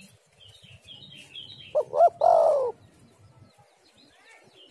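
Spotted dove calling once, about two seconds in: two short notes followed by a longer, falling coo. Small birds chirp faintly in the background.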